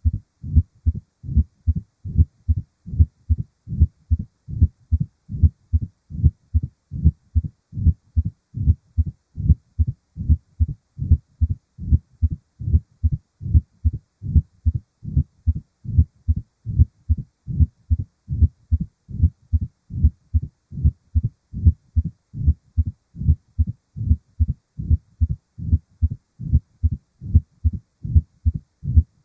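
Heart sounds of mitral stenosis: steady, regular beats with a decrescendo-crescendo diastolic murmur between them, the sign of a narrowed mitral valve.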